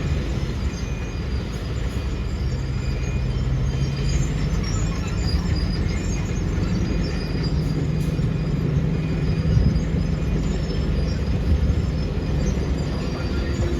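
Tata Hitachi excavator's diesel engine running steadily under working load, a continuous low hum that shifts slightly in pitch, with mechanical noise over it.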